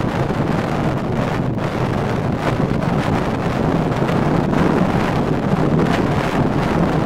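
Car driving at road speed, heard from inside the cabin: a steady engine hum under a constant rush of road and wind noise.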